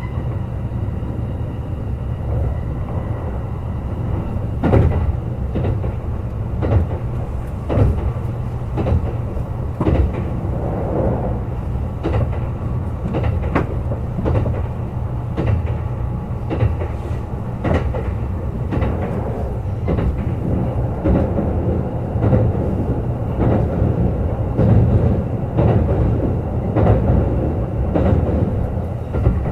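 Kintetsu Urban Liner Plus limited express train running at speed: a steady low rumble with irregular clacks of the wheels over rail joints every second or two.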